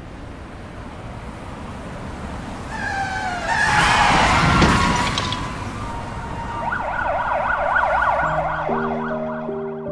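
Emergency vehicle siren over a rush of city noise. It wails with slow glides and is loudest about halfway through, then switches to a fast yelp about two-thirds of the way in. Soft piano music comes in near the end.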